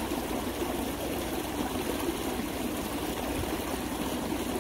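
Shallow stream running steadily over rocks, an even unbroken water noise.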